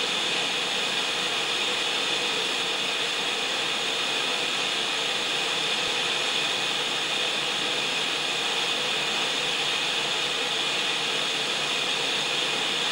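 Steady, unchanging hiss of analog television static (white noise).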